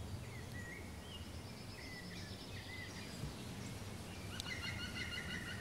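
Faint woodland birdsong: scattered short whistled chirps, then from about four seconds in a quick run of repeated high notes, over a low outdoor background hiss.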